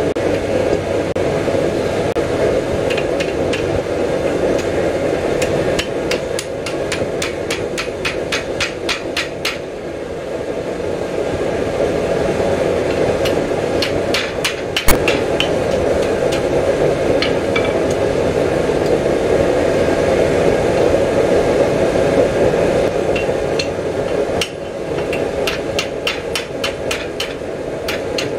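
Blacksmith's hand hammer striking hot steel held in tongs on an anvil: quick runs of light ringing blows, several a second, with pauses between runs and one sharper, heavier blow about halfway through. These are finishing blows for final touch-ups. A steady rushing noise runs underneath.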